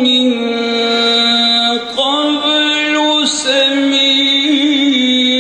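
A man's solo voice reciting the Quran in melodic chant through a microphone, unaccompanied, holding long notes with ornamented turns. The pitch shifts about two seconds in, and there is a brief break just after three seconds.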